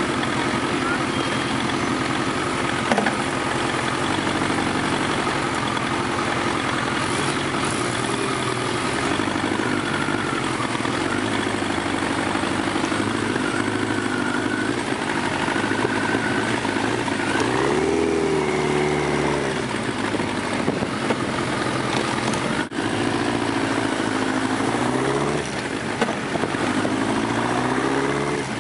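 Motorcycle engine heard from a camera mounted on the bike, running steadily, then revving up and down a few times in the second half as the bike pulls away and changes gear. A single sharp click about 23 seconds in.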